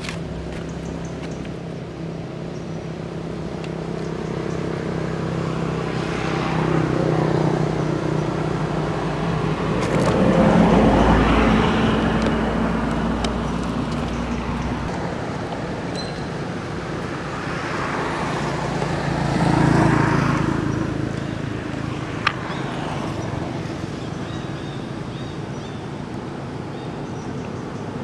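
Road traffic: motor vehicles passing, each swelling and fading over a few seconds, the loudest about eleven and twenty seconds in, over a steady low engine hum. A single sharp click sounds near the end.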